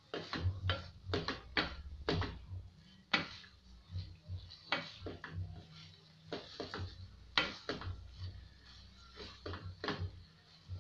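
Wooden spoon stirring small dried fish (omena) in an aluminium pot, with irregular scrapes and knocks against the pot's sides and base over a low hum.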